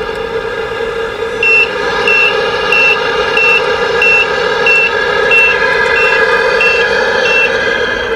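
Radio-controlled Tamiya tractor-trailer's sound unit playing a steady diesel truck engine sound, with a reversing beeper sounding about ten times, roughly one and a half beeps a second, from about a second and a half in until near the end.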